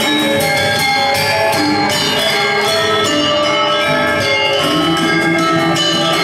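Balinese gamelan gong kebyar playing dance music: rapid strikes on bronze metallophones and gong-chimes over sustained ringing tones, at a steady loud level.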